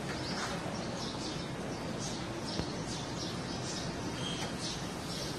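Birds chirping repeatedly in short high calls over a steady rush of gusty wind.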